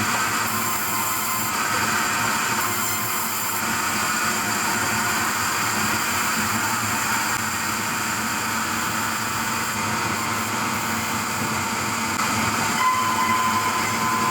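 Machinery running with a steady mechanical noise, and a faint whine that comes in near the end.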